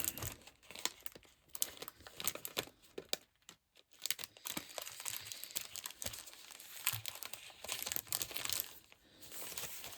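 Plastic wrapper crinkling and tearing as a pack of patterned craft paper is opened and handled, with paper sheets rustling. Irregular crackles throughout, pausing briefly about three seconds in.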